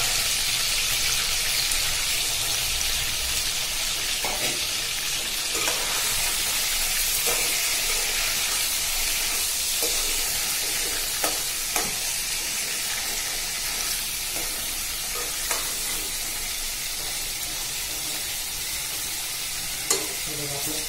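Chicken pieces sizzling steadily as they fry in hot oil in a kadhai over a low gas flame. A steel slotted spoon turns them, knocking and scraping against the pan with a few short clicks.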